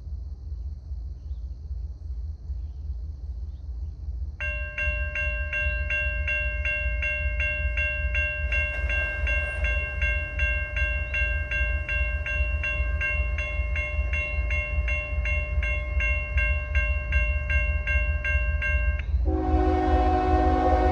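Railroad crossing signal bell starts ringing about four seconds in, at about two strokes a second, and stops shortly before the end. Right after it, the horn of the approaching CSX freight's lead locomotive, a GE ES44AH, sounds a loud, steady chord.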